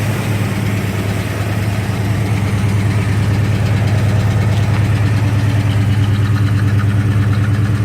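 1965 Pontiac LeMans engine idling steadily, getting a little louder about three seconds in.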